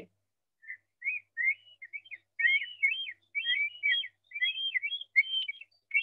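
A played-back recording of a bird call that is supposed to be a black stork: a quick string of short, high chirping whistles, starting about a second in and coming more densely toward the end.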